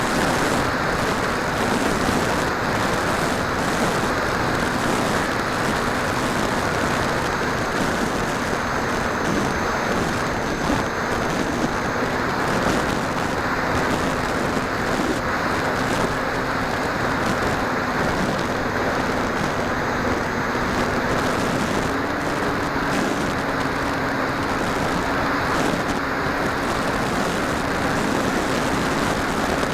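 Radio-controlled model aircraft's motor and propeller running steadily under a loud rush of wind, with the motor's hum stepping up in pitch twice, about twelve seconds in and again about ten seconds later, as the throttle is raised.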